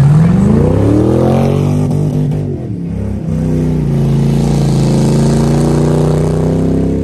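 A loud car engine revved hard while the car slides on grass. The revs climb steeply for about a second and a half, drop briefly near the middle, then hold high and steady.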